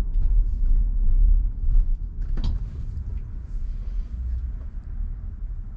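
Low rumble of tyre and road noise inside a Tesla Model Y's cabin, getting quieter as the car slows almost to a stop. A short sharp click about two and a half seconds in.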